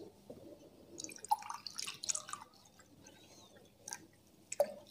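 Faint, scattered clicks and drips of a glass of water being handled.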